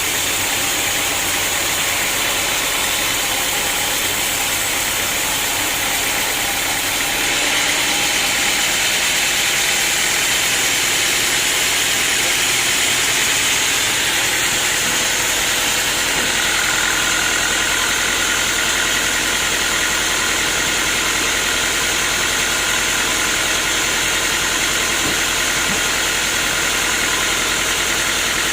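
Sawmill machinery running steadily. It gets slightly louder about a quarter of the way in, and a steady high whine joins it about halfway through.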